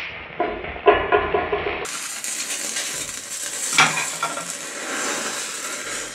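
Safety match heads flaring in quick succession as a chain of matches ignites: a sudden flare, then a run of crackles and fizzing. A steady hiss of burning matches follows, with another sharp flare about four seconds in.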